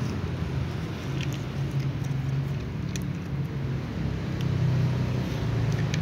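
Kittens eating from plastic bowls, with small scattered clicks of chewing and lapping, over a steady low rumble.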